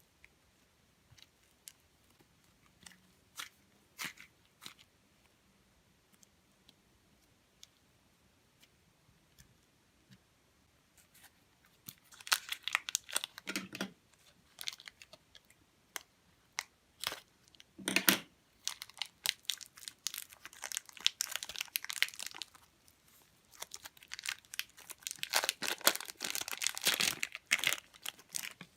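Slime being kneaded, pressed and stretched by hand, making crackling, popping clicks. At first only scattered small clicks, then bursts of dense crackling about a third of the way in, growing busiest near the end.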